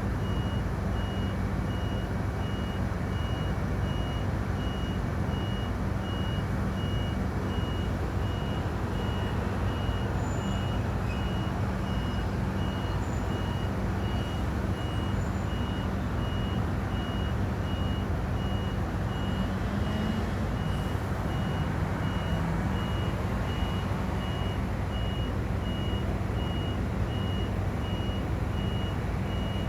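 A crane's warning beeper sounding over and over in evenly spaced short, high beeps while the crane is not moving, over a steady low hum.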